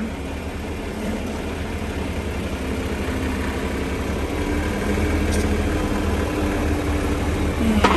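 John Deere tractor's diesel engine running steadily as its front-end loader sets a pallet onto a pickup bed. The engine note rises and gets a little louder about halfway through.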